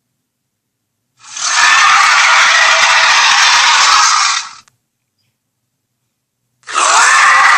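Two long, harsh, hissing sound-effect blasts, each about three seconds, separated by dead silence; the second starts near the end.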